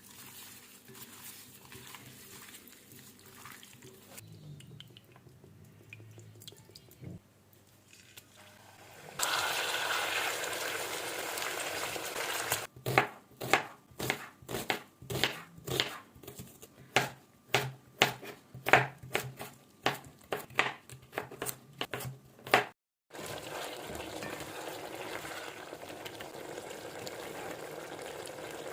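Home-kitchen cooking sounds. After some light handling, food sizzles in hot oil in a pan. Then a knife chops on a cutting board about twice a second for some ten seconds, and after a short break the steady sizzle of frying returns.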